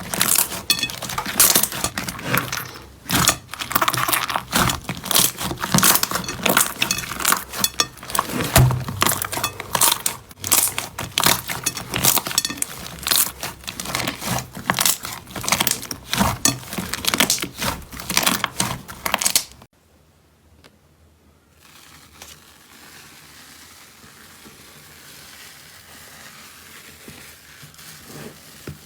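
Slime being squeezed and worked by hand: dense, rapid crackling and sticky popping that stops suddenly about two-thirds of the way in, leaving only a faint hiss.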